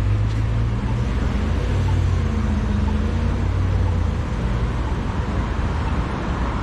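Steady city traffic noise, with a motor vehicle's engine giving a low drone that fades a little after about four seconds.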